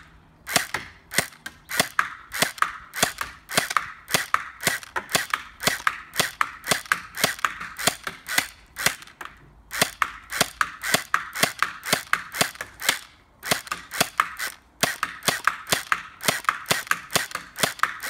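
Gelsoft Eagle gel blaster pistol firing water-gel beads over and over, a sharp crack about three times a second, with two short pauses, one about nine seconds in and another past thirteen seconds.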